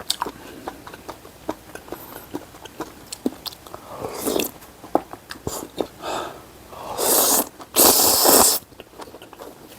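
Close-miked eating of spicy seafood noodle soup: small wet chewing clicks throughout, a short slurp about four seconds in, then two long, loud slurps of noodles near the end.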